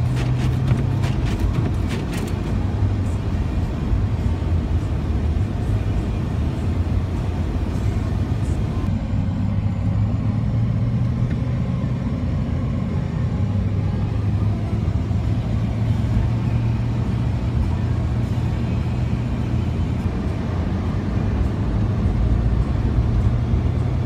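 Car interior while driving: a steady low hum of engine and road noise. Background music plays underneath.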